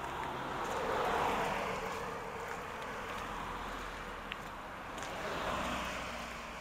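Cars passing on a road of melting snow, the tyre noise swelling to a peak about a second in and again after about five seconds.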